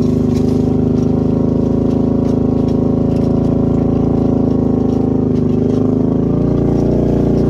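ATV engine running at a steady speed under load while towing a two-row planter, with faint clicks over it.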